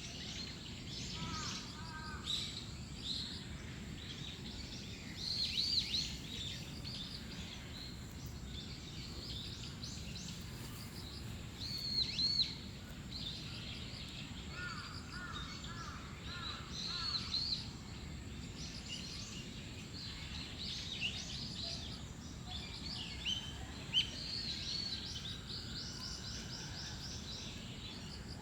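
Several small songbirds chirping and singing, with short high calls scattered throughout and a run of lower repeated notes near the start and again midway, over a steady low background rumble.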